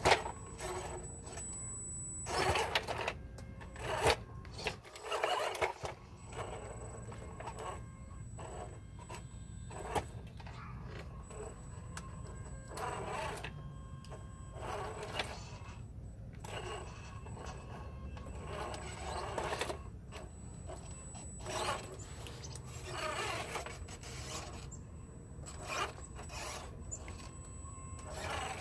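RC4WD Toyota Hilux scale RC crawler climbing over rocks and gravel, its small electric motor and gears whirring in stop-and-start bursts as it crawls, with tyres scrabbling on stone.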